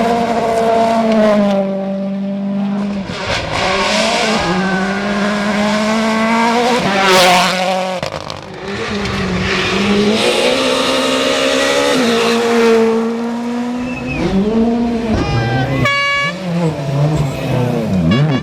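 Rally car engines revving hard on a stage, the pitch climbing and then dropping again and again with each gear change. A short, high-pitched whine comes near the end.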